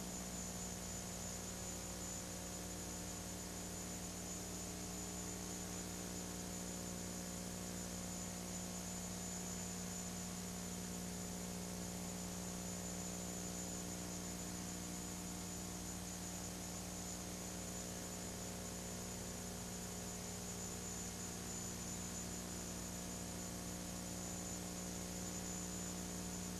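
Steady electrical hum with hiss and a faint high whine; nothing else is heard.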